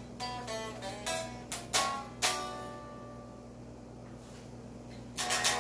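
Electric guitar played with a pick: a run of picked notes, then two sharp strummed chords about two seconds in that ring out and fade, and a quick flurry of strums near the end.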